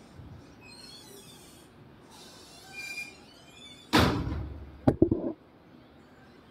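A sudden heavy thump about four seconds in that fades over most of a second, followed by a sharp click and a couple of quick knocks.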